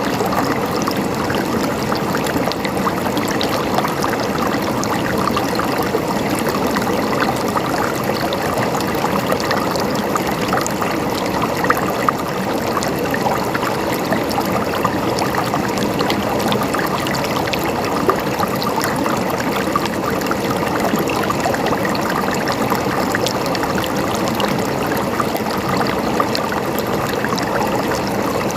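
River water flowing over rocks, a steady rushing and babbling with small splashes.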